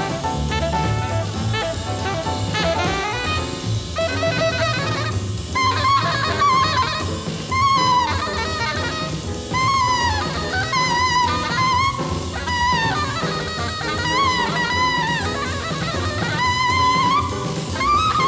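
Hard-bop jazz band playing, with drum kit and horns. From about five seconds in, a single horn plays a solo line with bending notes over the rhythm section.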